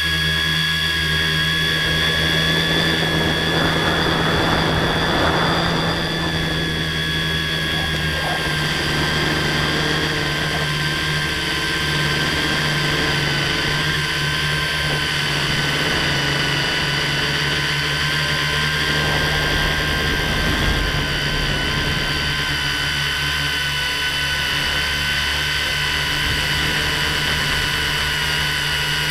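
Electric motors and propellers of an FPV drone, heard from its onboard camera, whining steadily in a high pitch that dips slightly about eight seconds in. Bursts of wind rush a few seconds in and again around twenty seconds.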